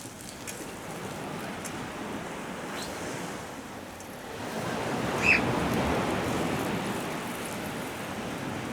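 Sea surf washing on the beach, with a wave swelling and breaking about halfway through. At the wave's peak comes one short, high, falling chirp.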